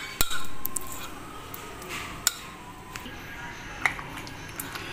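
Spoon stirring a thick custard-and-cream mixture in a glass bowl, with a few sharp clinks of the spoon against the glass, over faint background music.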